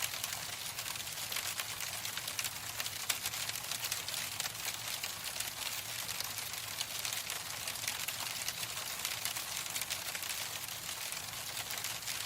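Steady rain pattering on a surface: an even hiss full of dense, fine drop ticks.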